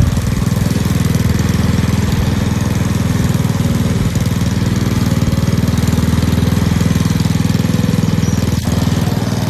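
Mountfield SP535 HW lawn mower's Honda engine running steadily under load as the mower cuts grass.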